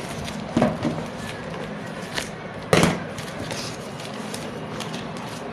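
Packaging being handled: a few short sharp knocks and taps, the loudest nearly three seconds in.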